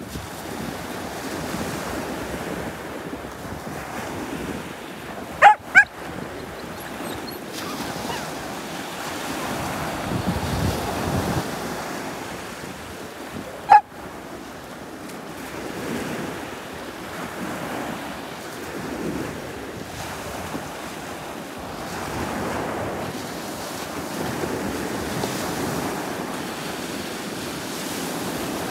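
Small waves breaking and washing up a beach, the surf swelling and easing in turn, with wind on the microphone. Three short, sharp, pitched yelps stand out above it: two in quick succession about five seconds in and one more about fourteen seconds in.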